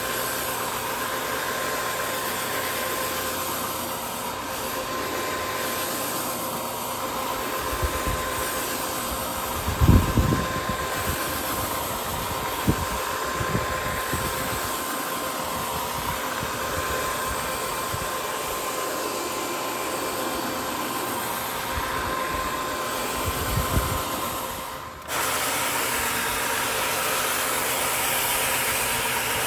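Electric rug-scrubbing machine running steadily, a motor whine with a constant hum, as its brushes work shampoo foam into a wet rug. A few low thumps come in the middle and again shortly before the sound changes abruptly near the end.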